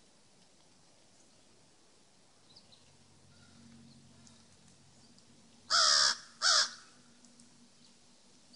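A bird, crow-like, gives two loud, harsh caws in quick succession about six seconds in.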